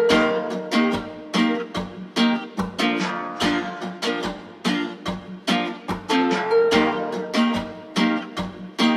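Background music: a guitar strummed in a steady rhythm, several strums a second.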